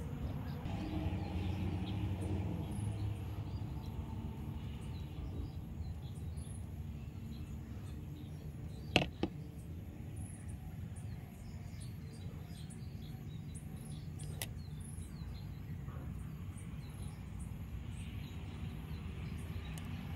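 Steady low background rumble with faint, scattered high chirps, like birds or insects. A single sharp click about nine seconds in, and a softer one a few seconds later.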